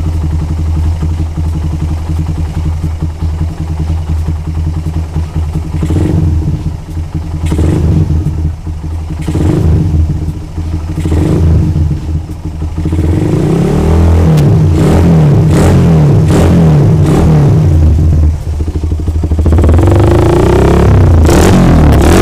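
Suzuki Satria FU's single-cylinder four-stroke engine through a Lone Rider racing exhaust. It idles with a few short throttle blips, then from about halfway through it is revved up and down repeatedly, loudest near the end.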